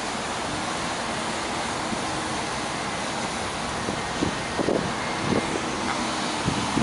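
City buses driving past one after another: a steady blend of engine and tyre noise, with a few short low knocks in the second half.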